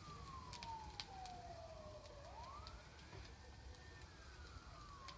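Faint emergency vehicle siren wailing: the pitch slides down, swings back up about two seconds in, holds briefly, then starts sliding down again. A few faint pops and crackles from the burning truck are scattered over it.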